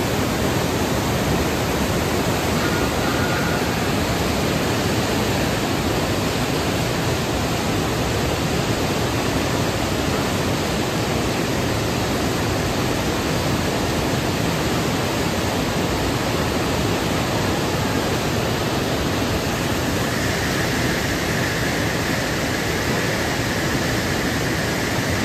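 Parvati River rushing steadily in fast, churning white water: a loud, even roar of a swollen mountain river.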